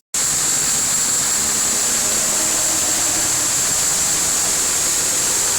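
Loud, steady static hiss with a strong high band, cutting in suddenly just after the start: the noise bed of a mock emergency alert broadcast.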